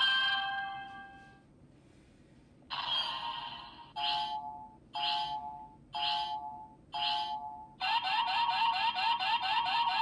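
DX Chemy Riser transformation toy playing electronic sound effects through its small speaker: a chime that rings and fades, a short pause, a burst of sound, four evenly spaced two-tone beeps about a second apart, then a fast repeating warbling loop near the end.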